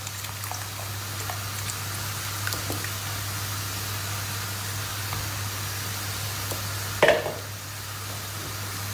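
Flour-and-water slurry poured into a pot of simmering lentil soup and stirred in with a wooden spoon: steady liquid stirring and pouring over a low, even hum. A short, sharp knock about seven seconds in.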